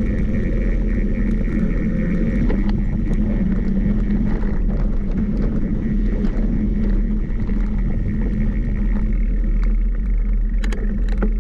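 Vehicle engine running steadily with a low rumble, the engine of a machine that has a misfire. A few light clicks come near the end.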